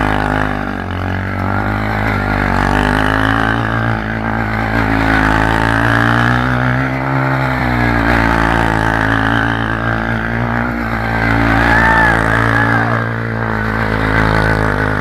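Small motorcycle engine running at steady, sustained throttle, its pitch wavering slightly, as the rear wheel spins in the dirt in a standing burnout.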